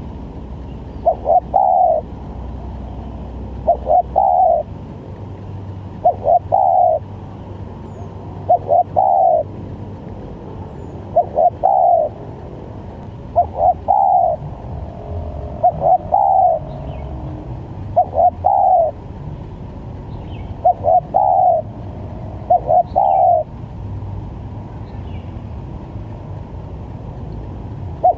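Spotted dove cooing, repeating the same short phrase about every two and a half seconds: two quick notes followed by a longer one. A steady low hum runs beneath.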